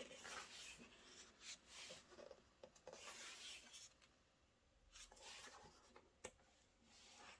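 Faint rustling and rubbing of photo-book pages and prints being handled and turned, with a single small tap about six seconds in.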